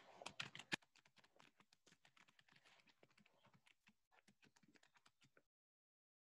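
Faint typing on a computer keyboard: a quick, irregular run of key clicks, louder in the first second, that stops about five and a half seconds in.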